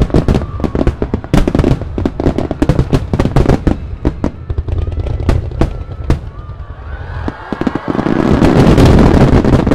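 Starmine aerial fireworks display by Ina Kako Horiuchi Enkaten: a rapid succession of shell bursts and launch reports, thinning out from about four seconds in. From about eight seconds a dense barrage of many shells bursts at once, the bangs running together with crackle into the loudest part.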